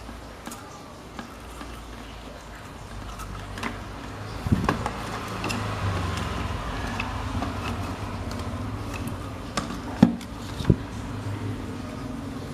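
A few sharp knocks and clicks over a steady low hum, the loudest knocks about four and a half seconds in and again near ten seconds.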